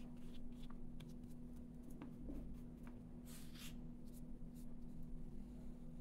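Faint scratching and brushing of a paintbrush laying acrylic gouache onto paper in short strokes, with a longer stroke about halfway through. A steady low hum runs underneath.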